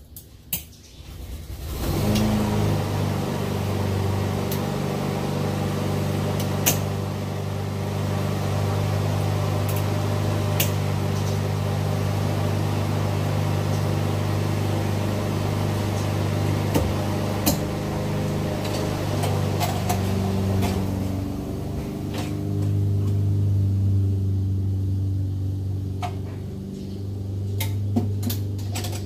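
An electric motor starts up and runs with a steady low hum, its tone and level shifting a couple of times. A few sharp clicks sound over it.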